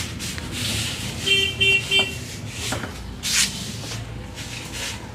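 Hands rubbing and brushing over hair and skin in a head massage, in short hissing strokes, with a vehicle horn tooting three quick times about a second in.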